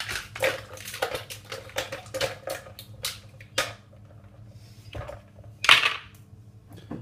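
Ice cubes dropped one at a time into a plastic blender jug of soaked dates, a string of irregular clacks and knocks, with a louder clatter near the end.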